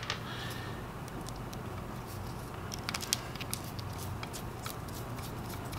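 Faint, scattered small clicks and rustles of stripped wire ends being handled and a plastic twist-on wire nut being fitted onto them, over a steady low hum.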